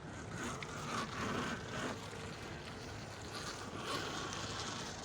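QS Motor mid-drive electric pit bike on the move: wind on the microphone over tyre and drivetrain noise and a faint motor whine, with louder swells about a second in and again near four seconds.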